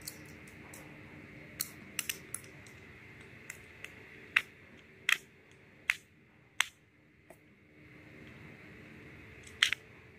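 Small screwdriver and plastic airsoft-pistol parts clicking and tapping as a screw is driven in by hand: irregular sharp clicks, a few in the first two seconds, a run of louder ones between about four and seven seconds in, and one more near the end.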